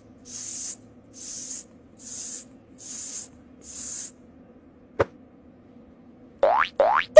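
Six short, evenly spaced hissing puffs under a faint steady hum. Then a single click about five seconds in, and a few quick sweeping whooshes rising and falling in pitch near the end: cartoon sound effects.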